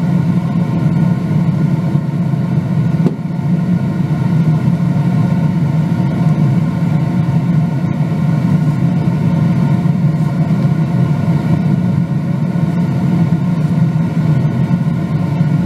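A loud, steady low drone with a constant hum, like a motor running.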